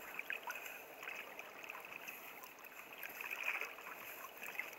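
Water lapping and trickling against a kayak's hull, with a few faint clicks of fishing tackle being handled.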